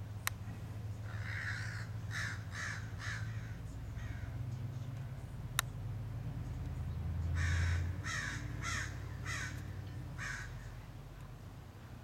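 American crows cawing in two runs of short harsh caws: about four in quick succession a second in, and five or six more starting about seven seconds in. Two sharp clicks and a steady low hum run underneath.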